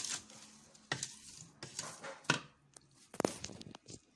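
Kitchen handling sounds: a few scattered clinks and knocks of a glass and utensils against a pot of grapes and sugar as water is being added, the loudest knock a little past three seconds in.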